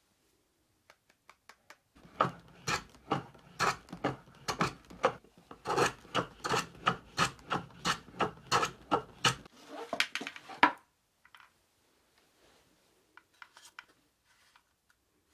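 A block of dried bonito (katsuobushi) is pushed back and forth over the blade of a wooden katsuobushi shaver box, making a run of rasping wood-and-blade strokes, about two a second. The strokes start about two seconds in and stop a little before the eleventh second, followed by a few faint light clicks.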